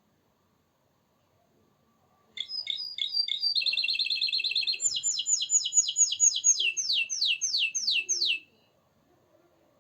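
Canary singing one phrase that starts about two and a half seconds in: a few separate notes, a fast trill, then a run of quick falling notes, about four a second, ending a little over a second before the close.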